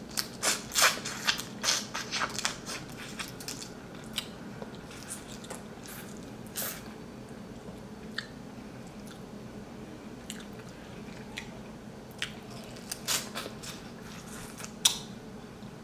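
Eating king crab legs: sharp cracks and wet crunching and squishing of shell being broken and meat eaten. The cracks come thick in the first few seconds, thin out, and bunch again near the end, where one single crack is the loudest.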